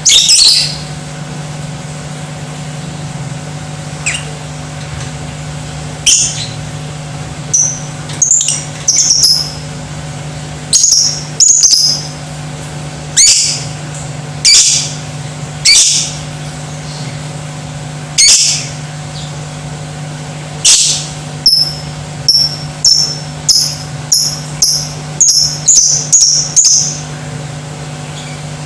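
Lovebird giving loud, shrill calls: single sharp cries spaced a second or more apart, then a fast run of short chirps in the last third. A steady low hum runs underneath.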